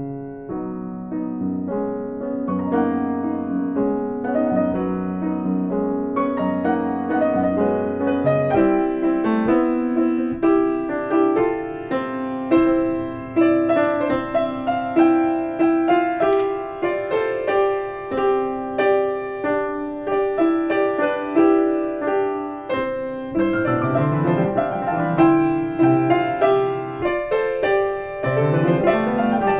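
Piano playing a continuous flowing passage of many notes. Near the end, sweeping arpeggios rise and fall through the lower register.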